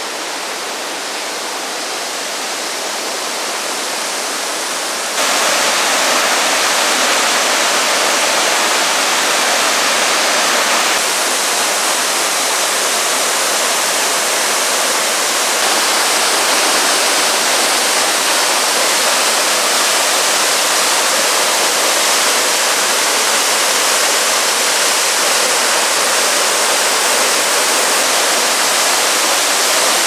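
Waterfall pouring into a rock pool: a steady rush of falling water that jumps louder about five seconds in.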